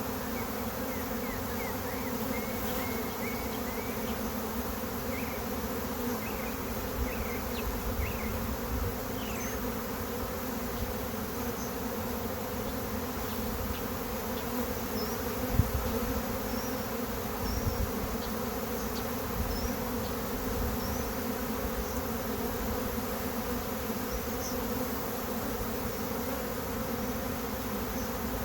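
A honey bee swarm in flight: the steady, dense buzzing drone of many bees in the air around the swarm's tree, after they have lifted off rather than settling into the box.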